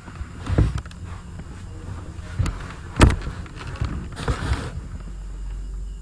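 Scattered knocks and clicks over a steady low background noise, the loudest knock about three seconds in.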